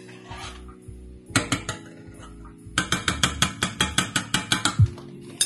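A metal utensil clicking against the inside of a stainless steel saucepan as a sauce is stirred fast: a few clicks, then about two seconds of quick, even clicking, around eight a second.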